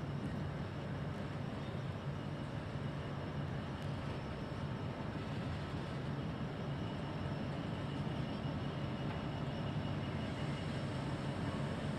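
Distant diesel-electric locomotive drone as 82 class 8253 approaches the station: a steady low hum that grows slightly louder near the end.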